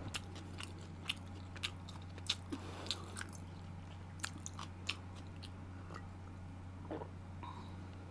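Faint close-microphone mouth sounds of a person eating and drinking: scattered small clicks and smacks of chewing and sipping, over a steady low hum.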